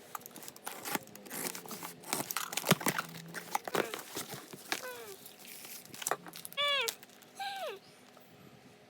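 Packaging being unwrapped, with crinkling, crackling and tearing, dense for the first five seconds. After that come a few short high whines, each falling in pitch.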